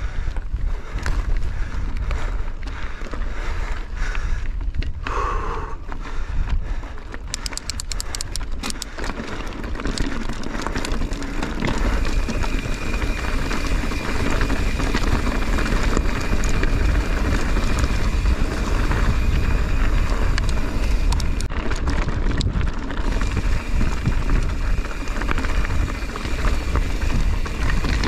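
Mountain bike being ridden over a rough trail: tyres running and the bike rattling over the ground, with wind rumbling on the microphone.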